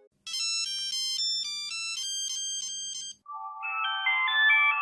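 Two short electronic mobile phone startup/shutdown jingles: a high, bright melody of stepping notes lasting about three seconds, then after a brief break a second, lower tune of quicker notes.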